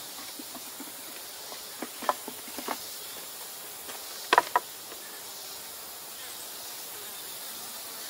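Honeybees humming steadily around an open Langstroth hive, with a few light knocks of wooden hive parts being handled, the loudest pair about four seconds in.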